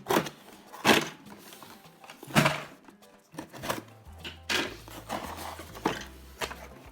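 Cardboard toy box being opened by hand: a string of sharp knocks and cracks, about seven, with rustling between them. Quiet background music with a low bass line comes in about four seconds in.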